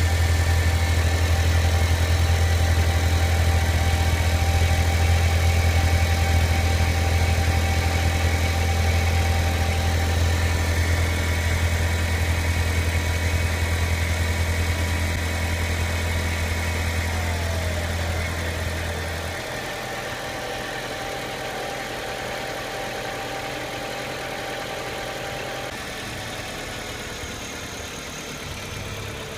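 Audi 1.8T turbocharged four-cylinder engine idling steadily. A loud low hum runs under it and drops away about two-thirds of the way through, leaving a quieter idle with faint steady whines.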